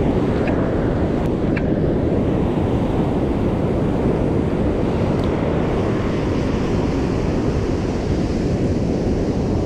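Big surf breaking and washing up the beach, mixed with wind buffeting the microphone: a steady, heavy low rush of noise.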